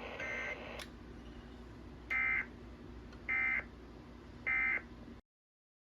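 Emergency Alert System end-of-message data bursts: three short bursts of shrill warbling digital tones, a little over a second apart, closing a tornado warning broadcast. The audio then cuts to dead silence near the end.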